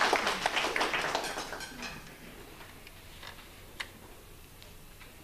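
Audience clapping dies away over the first two seconds, leaving a quiet room with a few faint scattered ticks.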